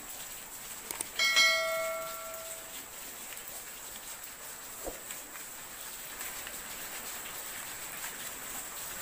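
A couple of mouse clicks, then a single bright bell chime about a second in that rings and fades over a second and a half: the notification-bell sound effect of a subscribe-button animation. Under it runs a faint steady hiss of rain.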